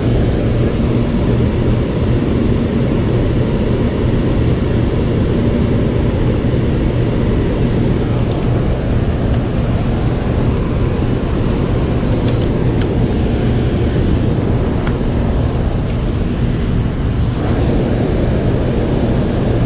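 Steady rushing roar of water pouring through a dam's open spillway gates, with a low steady hum underneath.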